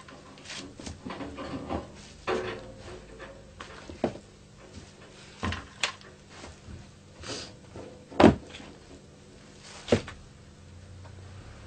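Handling noises in a workshop: scattered knocks, bumps and rustling as objects are picked up, moved and set down on the floor, with two louder thumps about eight and ten seconds in.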